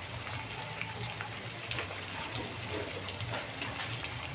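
Pieces of pork sizzling in a wok, with small scattered crackles over a steady low hum.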